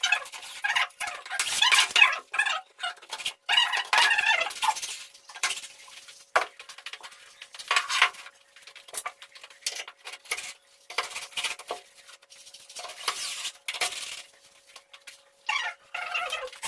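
Irregular clinks, taps and rattles of hard parts being handled and fitted, some with a brief metallic ring, with short quiet gaps between them.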